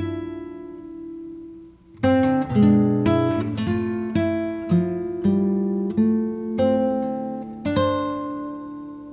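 Background music of a solo acoustic guitar picked note by note: a chord rings and dies away for about two seconds, then the picking starts again in an even run of single notes.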